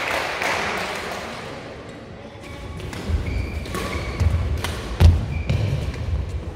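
Badminton rally on an indoor court: sharp clicks of rackets hitting the shuttlecock, short shoe squeaks on the floor and thudding footsteps, starting about two and a half seconds in. Before that a hubbub of voices fades away.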